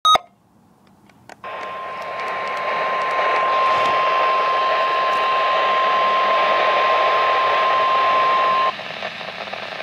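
NOAA Weather Radio warning alarm tone: a single steady tone of about 1050 Hz held for roughly seven seconds over radio static, then cutting off suddenly while the static continues. A short blip sounds at the very start.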